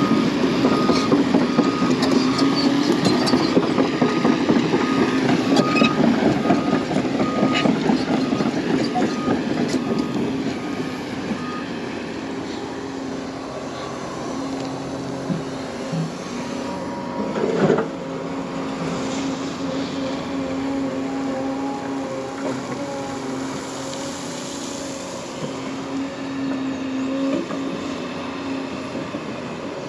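Hyundai HX330L excavator's diesel engine working hard as it tracks up a gravel pile, with its travel alarm beeping steadily. After about ten seconds the beeping stops and the engine runs more quietly with steady hydraulic tones as the boom and bucket move, and there is one sharp clunk about two-thirds of the way through.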